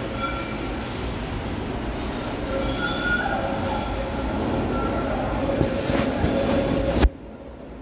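MBTA Blue Line subway train pulling into the station, a steady rumble with its wheels squealing in several high tones. The sound gets louder and harsher toward the end, then cuts off abruptly about seven seconds in.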